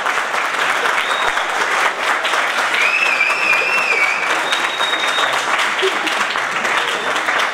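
Theatre audience applauding steadily, with a brief wavering high whistle about three seconds in.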